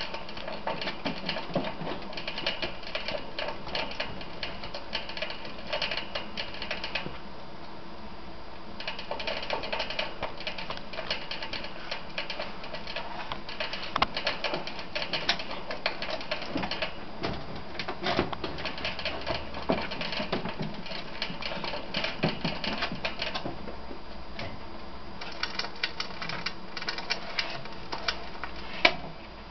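A ferret lapping at the metal sipper spout of a cage water bottle: a fast, uneven run of clicks and rattles that pauses twice briefly, with one sharp knock near the end.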